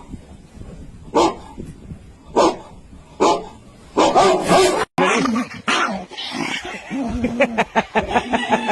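A dog barking: three single barks about a second apart, then a quick run of barks. After an abrupt cut near the middle, more dog vocalising mixed with people's voices.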